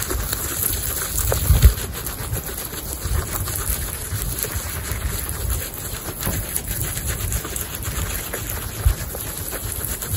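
Baby guinea pigs chewing fresh-cut grass close to the microphone: a steady run of small, rapid crunching clicks, with a few dull low thumps, the loudest about a second and a half in and near the end.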